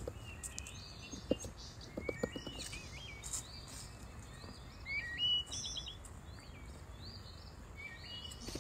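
Birds chirping in short, repeated calls over a low, steady background rumble.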